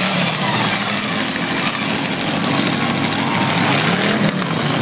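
Demolition derby car engines running and revving, several pitches rising and falling at once over a steady wash of noise.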